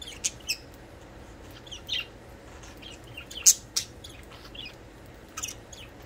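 Budgerigars chirping: short, scattered high chirps and clicks, the loudest about three and a half seconds in.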